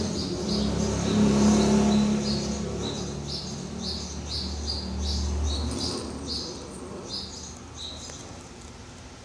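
Bird chirping in quick short notes, two to three a second, over a low rumble that swells early and dies away about six seconds in.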